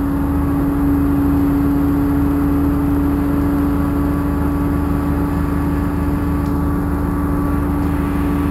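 A vehicle engine idling steadily: a constant hum over a low rumble, with no revving or change in pitch.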